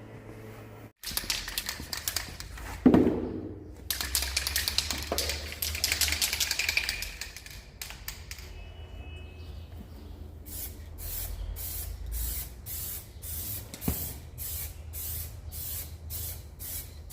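Aerosol spray paint can: a run of clicks, then a few seconds of steady spray hiss, then a string of short quick spray bursts, about two a second, laying down a light first mist coat on scooter plastic.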